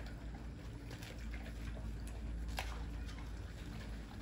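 Several dogs chewing raw meat and bone: wet chewing and smacking, with scattered short, sharp crunches and clicks.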